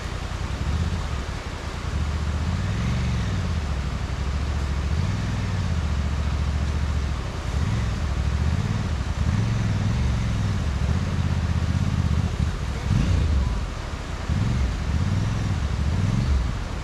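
Off-road vehicle engines running, with repeated revs that rise and fall every second or so over a steady idle.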